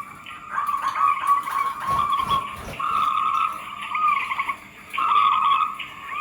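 Zebra doves (perkutut) cooing: rippling, trilled coo phrases on one steady pitch, in three stretches with short gaps. A brief low rumble comes about two seconds in.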